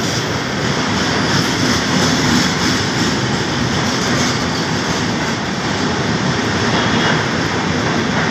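LHB passenger coaches of an express train running through a station at speed without stopping: a steady, loud noise of wheels on the rails.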